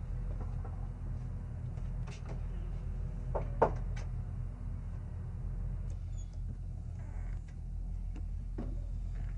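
A storm door and a front door being opened by hand: several latch clicks and knocks, the sharpest about three and a half seconds in, over a steady low hum.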